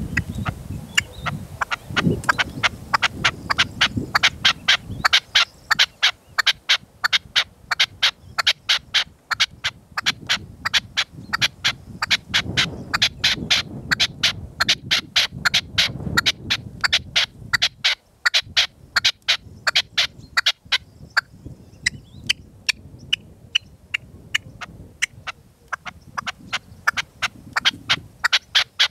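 Red-legged partridges calling: a long run of sharp, rapidly repeated notes, several a second, fainter for a few seconds past the middle. Gusts of wind rumble on the microphone underneath, strongest at the start and again about halfway.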